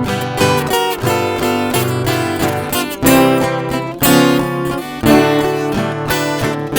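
Instrumental break of a sertanejo song: a viola caipira and an acoustic guitar play plucked and strummed notes between sung verses.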